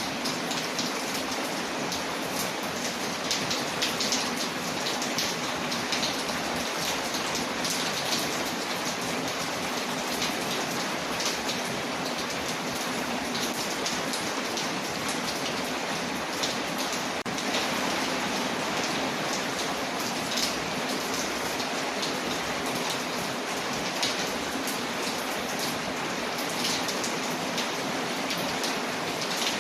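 Steady rain pattering on a window, layered with the small pops and crackles of a wood fire. The sound is an even hiss, scattered with frequent sharp ticks.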